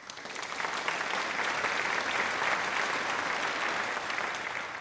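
Applause, swelling over about the first second and fading away near the end.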